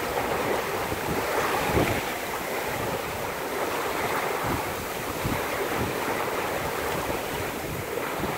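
Water rushing and breaking along a sailboat's hull as it sails fast through a choppy sea, with wind buffeting the microphone in irregular low thumps.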